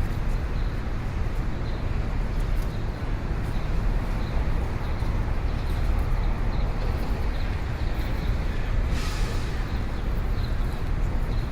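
Busy city street ambience: a steady low rumble of traffic, with a short sharp hiss about nine seconds in.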